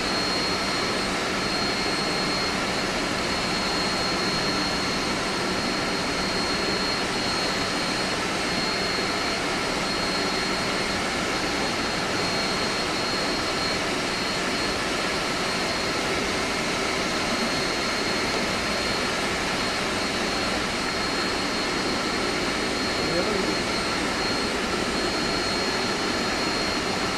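Steady machinery drone of an air-conditioning plant room: an even roar with a constant high whine over it, unchanging throughout.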